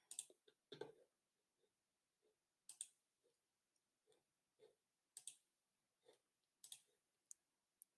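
Faint computer mouse clicks, a dozen or so spread out with pauses between, several coming as quick double clicks.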